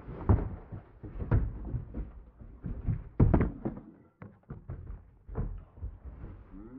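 A string of heavy thumps and knocks, the loudest in the first three and a half seconds, with a run of lighter clicks and taps after about four seconds in.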